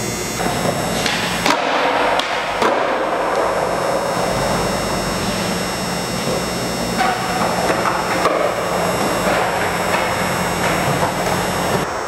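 Skateboard wheels rolling over a smooth concrete floor, with a few sharp knocks from the board.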